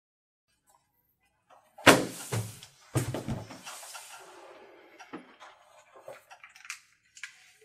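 A sudden loud bang about two seconds in, a second heavier thump a second later with rustling, then a string of light knocks and rustles of things being handled on a table, with the close sound of a small room.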